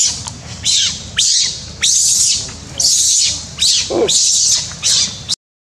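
Long-tailed macaque screaming: a run of about eight harsh, high screams, roughly two a second, that stops abruptly near the end.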